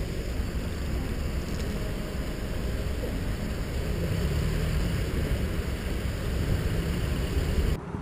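A car running as it creeps slowly forward, heard through a camera mounted on its hood: a steady, low rumbling noise that cuts off abruptly near the end.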